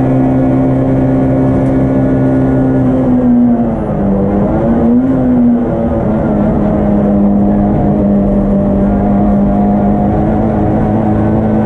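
A Yugo race car's engine, heard from inside the cabin, running hard at steady high revs. The revs drop about three and a half seconds in, rise and fall briefly about five seconds in, then hold lower and climb again near the end.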